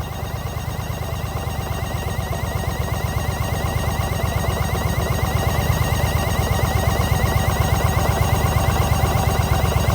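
Yamaha XV950 Bolt's air-cooled V-twin idling with a low, even pulse and a fast, regular high chirp over it, growing slightly louder. This is the abnormal noise of an air leak at the intake manifold.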